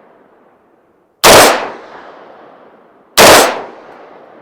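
Two single rifle shots from a Diamondback DB15 AR-15, about two seconds apart, each a sharp crack that trails off in a second of echo.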